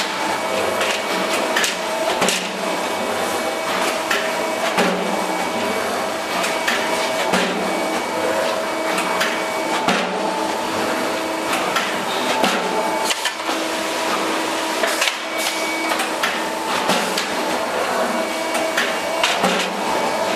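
Hydraulic travelling-head die cutting press punching sandpaper discs: a steady machine hum with sharp knocks every few seconds, irregularly spaced, as the cutting head strikes the sheet.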